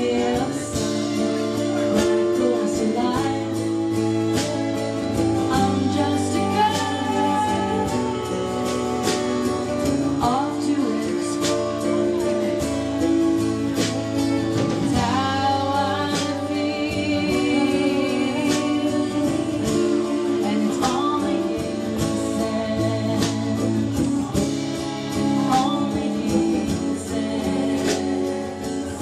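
Two women singing a song live in harmony, backed by acoustic guitar and fiddle.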